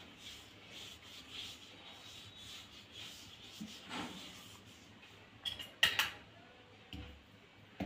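Hand spreading ghee over a rolled-out round of maida dough on a wooden board: faint soft rubbing, with a few light clicks about two-thirds of the way in.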